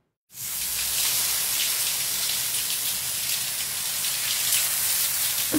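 Shower water spraying steadily from a handheld shower head, coming in quickly after a brief silence.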